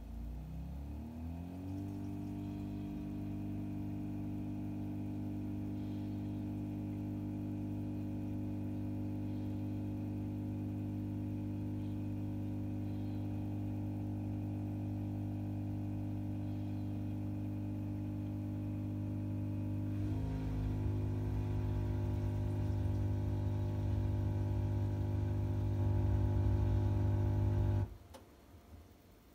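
Siemens dishwasher's pump motor running during a program cancel (reset). Its hum rises in pitch as it starts, then runs steadily. About twenty seconds in it turns louder and rougher, and it cuts off suddenly near the end.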